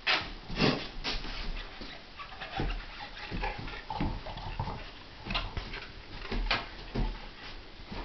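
Two Newfoundland dogs playing tug-of-war with a rubber tug toy: an irregular scatter of short scuffles and dog noises as they pull and shift on a tile floor.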